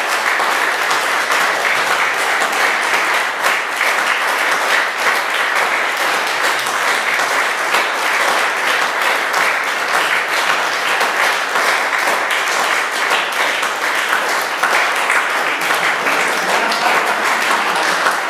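Audience applauding steadily: dense, even clapping that closes an opera performance.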